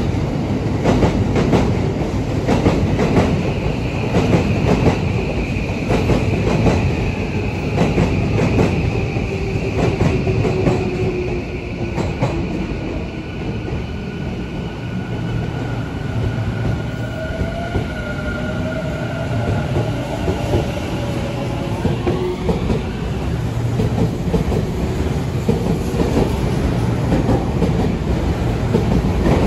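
Tobu 50000-series electric train pulling out of the station along the platform: wheels clattering over the rail joints, with a motor whine that shifts in pitch as the train gathers speed.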